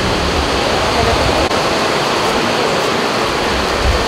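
Heavy rain falling steadily, a constant loud hiss, with a few brief patches of low rumble.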